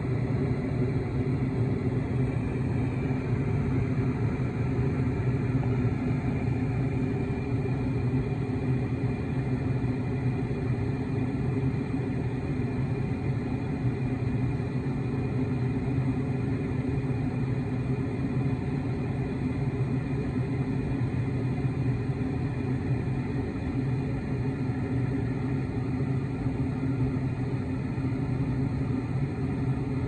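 Gas furnace firing: the burners and the draft inducer running with a steady, low-pitched sound. This is the heat-up stage before the blower comes on.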